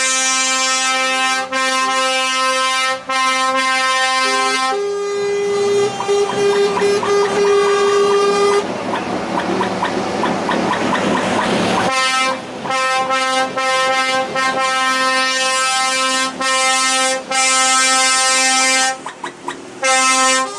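Truck air horns blowing long, loud, sustained blasts, several pitches sounding together with short breaks. About nine seconds in the horns give way to a loud rushing noise for about three seconds, then the horns sound again.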